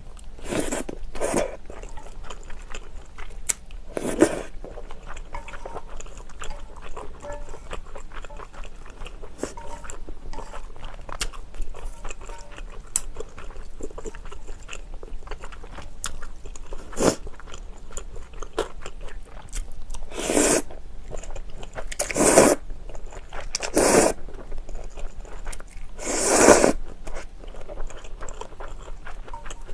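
Close-miked eating of cream pasta: steady wet chewing, broken by about eight short, loud slurps and bites of the sauce-coated noodles, mostly in the second half.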